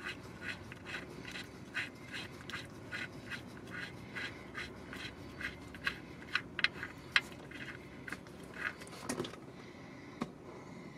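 Faint small clicks and ticks, a few a second, as the metal transmission drain plug is spun out of its threads by hand, then a sharper click a little after nine seconds as the plug comes free.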